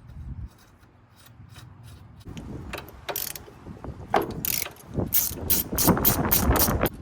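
Hand socket ratchet being worked on a suspension fastener, its pawl clicking in quick strokes. The clicking picks up in the second half, about four clicks a second.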